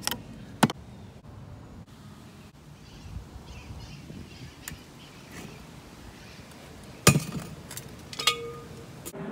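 Several sharp knocks and clinks of hard objects: one at the start, another just under a second in, then a cluster from about seven to nine seconds in, one of which rings briefly with a short tone. A faint steady background lies beneath.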